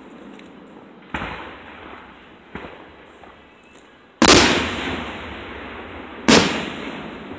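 Aerial firework shells bursting: four sudden booms, two lighter ones in the first half, then two loud ones about four and six seconds in, each trailing off over a second or so.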